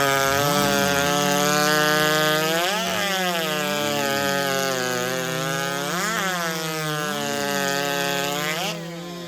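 Big-bore racing chainsaw over 90 cc running flat out through a log. Its pitch jumps up sharply three times, each time a cut breaks through, and the sound falls away near the end.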